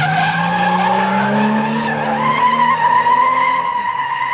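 Drift cars sliding sideways under power: tyres squealing in a steady high-pitched screech over engines held at high revs.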